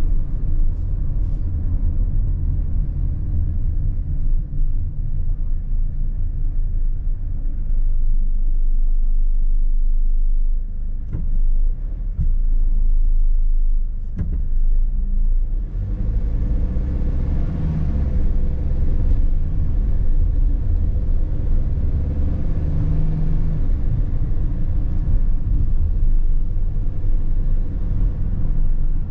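Mercedes-Benz Sprinter van's engine and road rumble heard from inside the cab. It quietens to a steady idle while the van waits at traffic lights, then the engine picks up and tyre noise rises about halfway through as the van pulls away and gathers speed.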